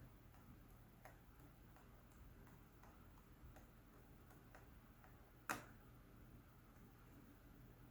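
Faint, irregular small ticks and one sharper click about five and a half seconds in, from a screwdriver and hands working the screws of a laptop's bottom cover.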